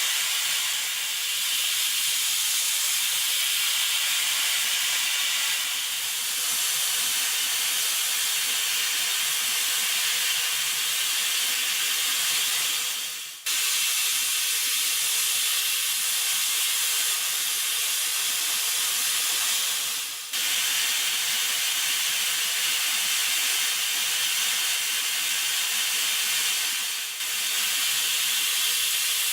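CNC milling machine cutting a metal lamp housing with a small end mill. It makes a steady hiss with one steady tone under it, and the sound dips briefly three times.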